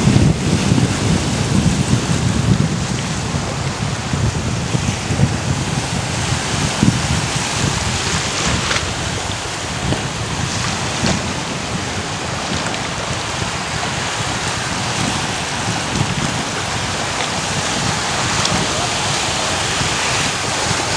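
Strong wind buffeting the microphone in a heavy rumble, strongest in the first few seconds, over the steady wash of small waves.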